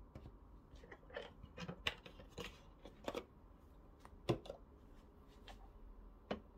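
Light handling noises: a run of small clicks and rustles, then a sharper knock about four seconds in as a carton of milk is set down on the counter, and a lighter knock near the end.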